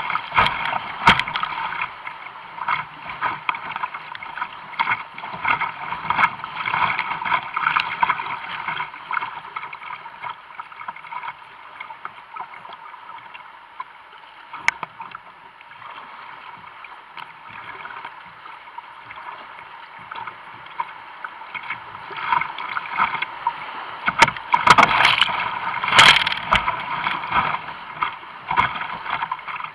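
Whitewater rushing around a kayak in a flooded creek, with waves splashing over the bow. It is busy and choppy at first, calmer in the middle, then heavy splashes again near the end as the boat runs more rapids.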